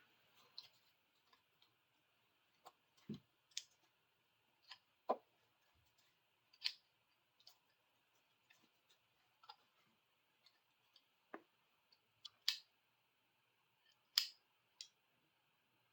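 Scattered light clicks and taps of small metal hand tools, a pair of pliers, being handled and turned over, about a dozen spaced irregularly over a faint steady hiss.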